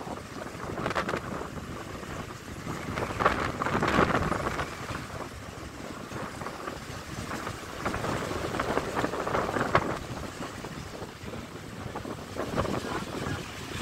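Wind buffeting the microphone on a moving open vehicle: a rushing, gusty noise that swells and fades irregularly every second or two.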